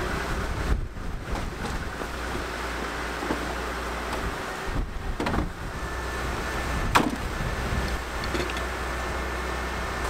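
Storm wind blowing steadily and still fairly strong, with a sharp knock about five seconds in and another about seven seconds in.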